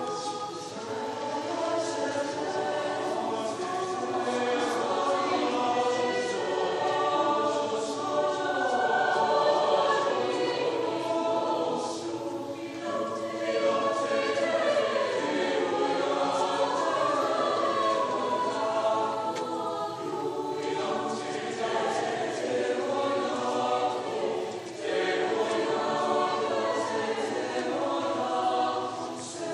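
Chamber choir singing a piece in several parts, with short breaks between phrases about twelve and twenty-five seconds in.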